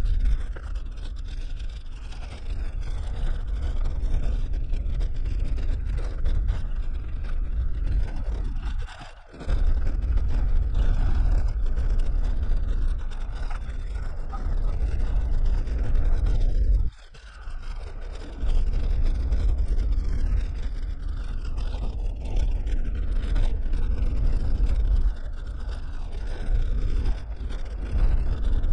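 Suzuki Jimny driving on a rough dirt track, heard from inside the cabin: a steady low rumble of tyres on gravel with scraping and rattling. It drops away sharply twice for a moment, about a third and about three-fifths of the way in.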